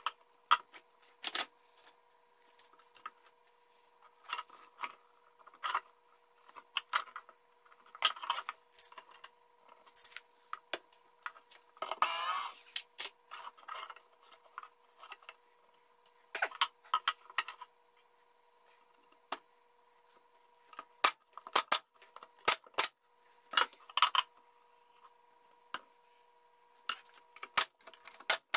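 Pine boards knocking, clattering and sliding against each other as slats are set in place on a wooden pallet, in irregular sharp knocks with pauses. A faint steady hum runs underneath, and a quick run of sharp clicks comes near the end.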